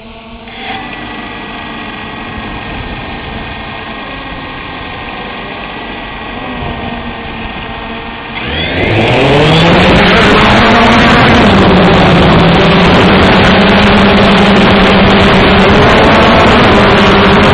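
Multirotor drone motors and propellers. A fainter steady whine holding several pitches runs for the first eight seconds. About eight seconds in the motors spool up, rising in pitch over a couple of seconds, then settle into a loud steady propeller hum and rush as the drone lifts off and hovers.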